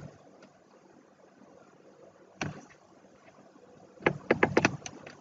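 Computer keyboard typing: a single keystroke about halfway through, then a quick run of several key clicks near the end.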